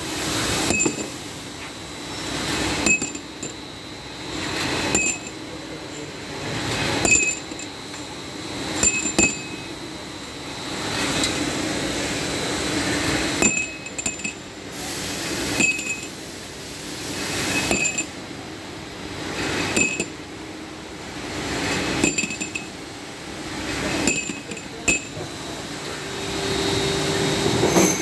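Steel bearing races clinking as a through-feed duplex surface grinder pushes them out. There is a sharp, ringing metallic clink about every two seconds over the machine's steady running noise, which swells between clinks.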